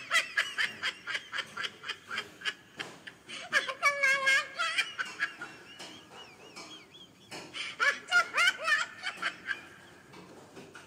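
Laughter in quick repeated bursts, with higher, wavering laughs about four seconds in and again around eight seconds, dying away near the end.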